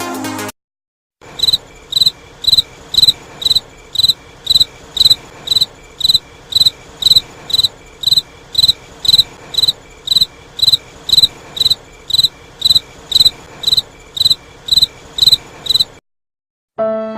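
Cricket chirping in a steady, even rhythm, about two high-pitched chirps a second over a faint hiss.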